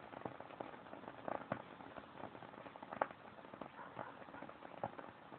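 Wooden-wick candle burning with a soft, irregular crackle: small pops and clicks at uneven intervals, the loudest about three seconds in.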